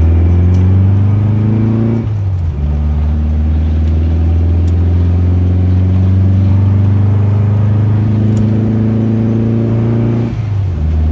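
Volkswagen Fusca 1600's air-cooled flat-four engine pulling under acceleration, heard from inside the cabin. Its pitch rises, then drops at an upshift about two seconds in, and climbs slowly again before another shift near the end.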